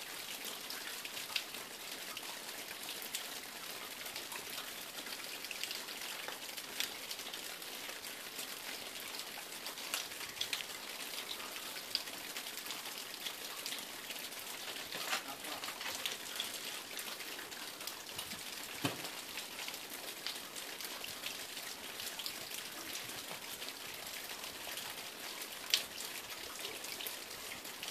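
Water dripping and trickling off an icefall: a faint, steady patter of drops, with scattered sharper ticks.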